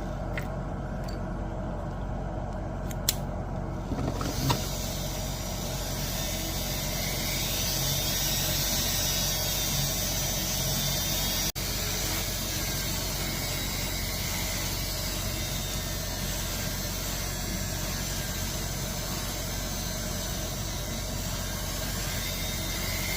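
Steady, even mechanical noise, with a few sharp clicks in the first four seconds and a brief dropout a little before halfway.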